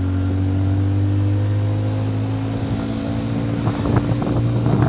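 Vehicle engine running at a steady road speed, a low steady drone heard from the open cargo bed where passengers ride. A few short sharp sounds come in near the end.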